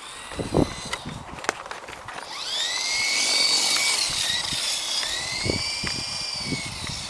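Small electric remote-control helicopter's motor and rotor spinning up with a sharply rising whine about two seconds in. The whine then holds and wavers in pitch as the throttle is worked. A few short knocks come before it.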